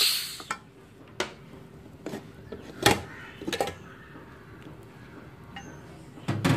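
Aluminium pressure cooker being opened: the whistle weight is lifted off and the lid twisted and lifted away, giving a loud burst right at the start and then a series of sharp metal clinks and knocks. There are about eight knocks, irregularly spaced, with louder ones near the end.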